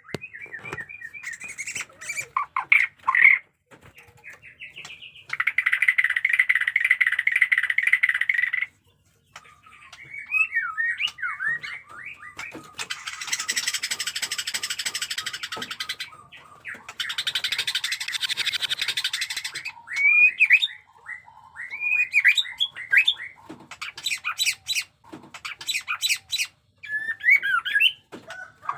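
White-rumped shama singing in fighting style: quick whistled notes and glides broken by long, harsh rattling and chattering phrases of a few seconds each.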